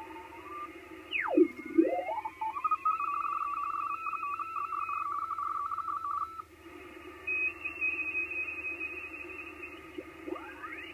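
Unidentified fast signals on the 28 MHz (10 m) band heard through an HF transceiver in upper sideband, which the operator takes for data signals and which are too fast for Morse. As the receiver is tuned, they come through as whistles that slide down and then up in pitch. One then holds as a tone flicking rapidly between two close pitches for about four seconds, followed by a fainter, higher tone and, near the end, more tones gliding upward.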